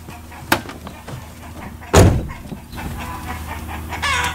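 The driver's door of an SUV is slammed shut with one loud thud about two seconds in, after a lighter click as he gets in. Chickens start clucking near the end.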